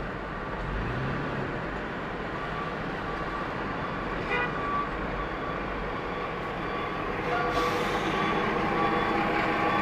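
Steady city traffic and road noise from a car driving in slow traffic, with a short horn toot about halfway through. From about seven seconds in, a steady pitched hum grows louder as a tractor-trailer runs alongside.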